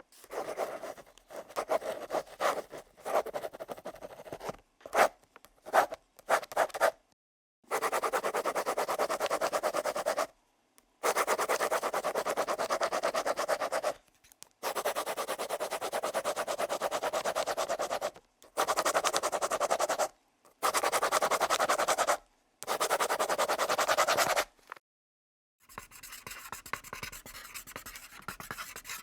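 Pencil writing on paper. Short, irregular scratchy strokes come first, then several long stretches of continuous scribbling a few seconds each, each starting and stopping abruptly, and quieter separate strokes near the end.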